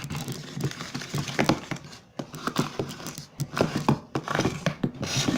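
Slime mixture being stirred vigorously right after the boric-acid-water activator was added, still working toward the right consistency. It makes a run of irregular sticky clicks and scrapes.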